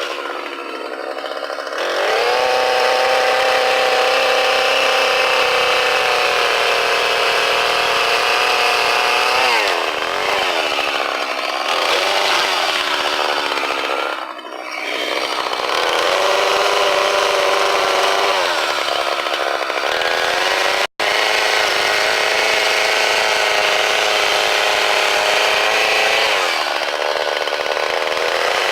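Chainsaw running and cutting into wood. Its engine pitch drops under the load of the cut and climbs again as the throttle eases, several times over. The sound cuts out for an instant about two-thirds of the way through.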